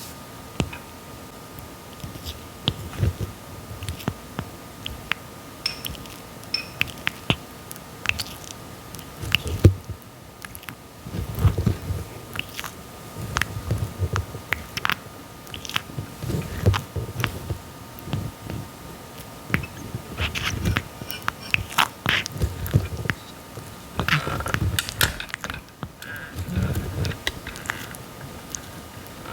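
Red-footed tortoise biting and chewing papaya: irregular bites with sharp clicks from its beak and soft low mouthfuls, coming in clusters.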